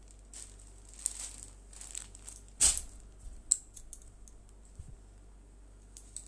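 Cloth rustling as cotton dress fabric and a dupatta are handled and swapped, with a loud rustling thump about two and a half seconds in and a sharp tap a second later. A steady low hum runs underneath.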